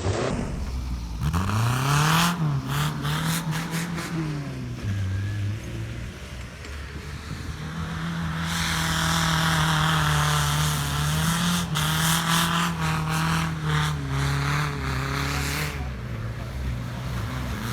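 Engine of the Zmota Wirus extreme off-road vehicle revving up and down as it drives, its pitch rising and falling repeatedly and held high for a few seconds in the middle.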